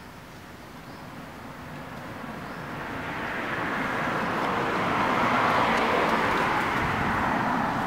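A passing motor vehicle: a hiss-like rush that grows steadily louder, peaks about five seconds in and eases off slightly toward the end.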